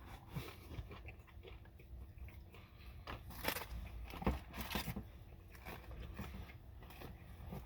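A person chewing and biting into a breaded fried chicken finger, with a few sharper crunches about halfway through.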